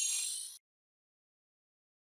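A short, bright, high-pitched shimmering sound effect that fades out within about half a second.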